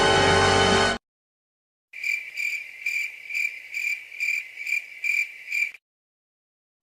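Cricket chirping sound effect: an even, high chirp about twice a second for roughly four seconds, the stock 'crickets' cue for an awkward silence. It follows a music cue that cuts off about a second in.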